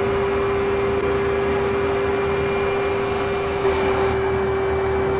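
Small electric motor running steadily, a blower-type drone with one constant mid-pitched hum.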